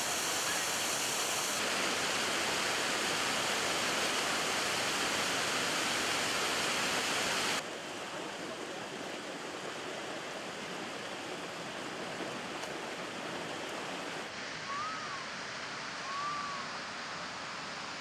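Steady rush of a waterfall, dropping abruptly in level partway through as the shot changes. Near the end come two short rising-and-falling whistled notes.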